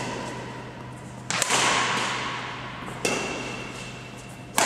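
Badminton rackets striking a shuttlecock in a rally: four sharp hits about a second and a half apart, the second the loudest, each echoing on in a large sports hall.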